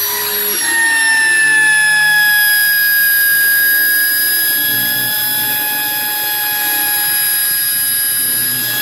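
Homemade CNC machine's spindle running with a steady high whine, its pitch dipping slightly about a second in and then holding.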